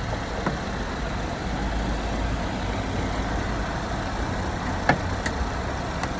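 Car engine idling steadily, with a few light clicks, the sharpest about five seconds in, as the turn-signal bulb socket is handled and fitted into the light housing.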